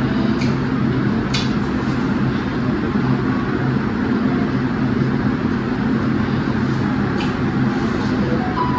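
A steady low hum runs without change, with a few faint clicks over it.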